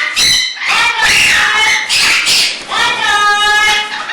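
Pet parrots calling and chattering: several loud, shrill, voice-like calls, the longest and most tuneful near the end.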